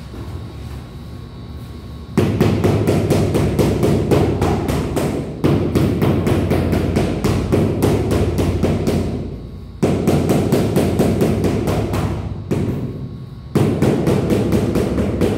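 Fast, even thudding on a large ceramic floor tile as it is tapped down into its mortar bed, in four runs of about three seconds that each start suddenly and fade.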